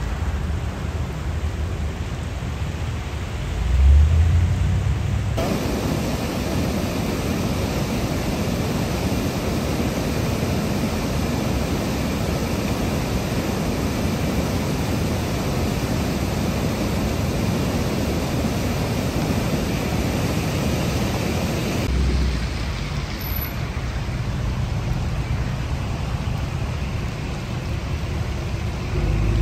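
Floodwater rushing in a swollen, storm-fed creek: a steady noise of churning water. A brief low bump comes about four seconds in. The sound grows brighter and fuller about five seconds in and drops back near twenty-two seconds.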